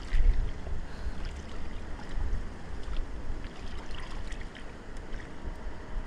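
Shallow river water sloshing and splashing around wading legs, with wind rumbling on the microphone.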